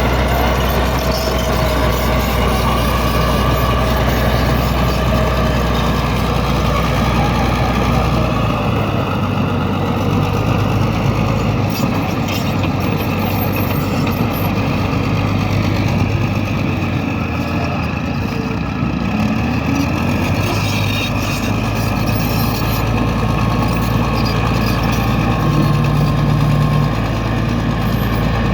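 Bulldozer's diesel engine running steadily, its low note shifting a few times as the machine works.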